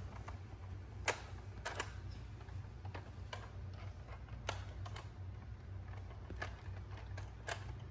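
Plastic toys being handled, giving scattered light clicks and taps at irregular moments, about eight in all, over a low steady hum.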